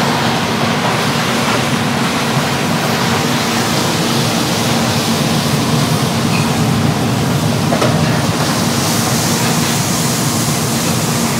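Steady roar of a restaurant wok burner under a large wok of hot oil, with a constant low hum and the sizzle of pork kidney being stir-fried. The sizzle grows brighter about nine seconds in, as the chillies, spring onions and seasonings go into the wok.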